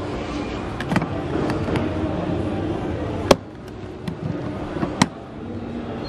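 Sharp plastic clicks and knocks from a Henry Pet vacuum cleaner's head and bin being handled at the side clips. The loudest click comes a little past the middle, over a steady background hum.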